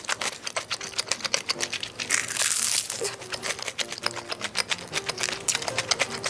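Close-miked eating sounds of rice cake being chewed: a dense run of small, irregular mouth clicks and smacks, with a louder rustling crinkle about two seconds in.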